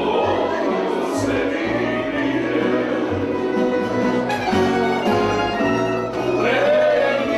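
Tamburica band playing live without amplification: plucked tamburice over a walking bass tamburica, with a voice singing along.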